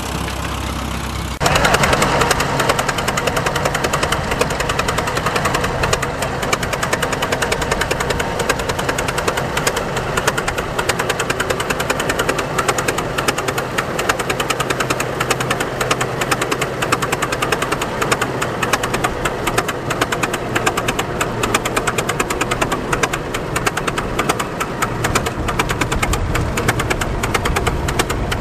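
Rock Island Plow Co. Heider friction-drive tractor's engine running while pulling a plough, with a fast train of knocks; the engine is not running too well. For about the first second and a half a quieter tractor engine is heard, then the Heider starts abruptly and louder.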